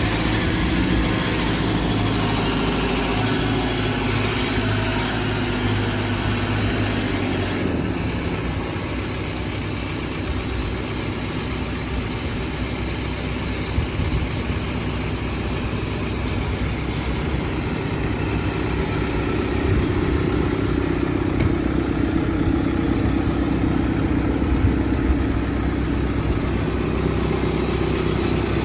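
2017 JCB 3CX backhoe loader's four-cylinder diesel engine running steadily at idle, getting a little louder about two-thirds of the way through.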